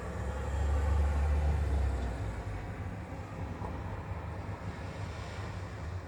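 Low rumble of a passing road vehicle, loudest about a second in, easing into a steadier low hum of traffic.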